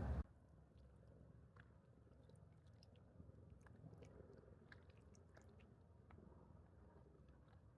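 Near silence, with faint scattered small clicks over a low steady background.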